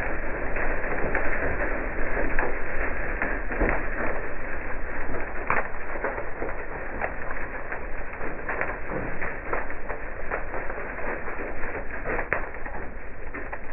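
Microburst winds buffeting a truck, heard from inside the cab: a steady rushing of wind with irregular sharp ticks and taps as blown leaves and debris strike the windshield and body.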